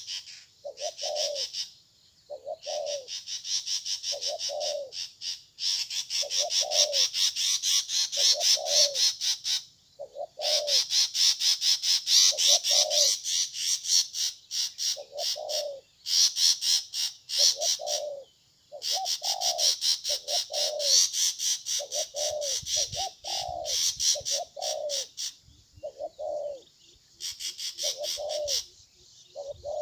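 Spotted dove cooing, a low note repeated about every second and a half. Over it runs a louder, high, fast-pulsing trill that comes in bursts of several seconds with short breaks.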